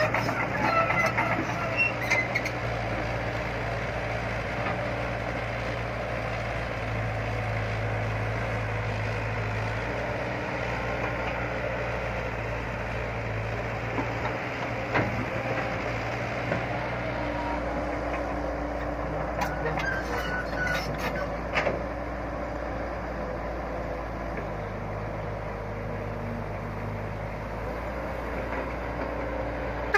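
Excavator's diesel engine running steadily, with a few sharp knocks and clanks about halfway through.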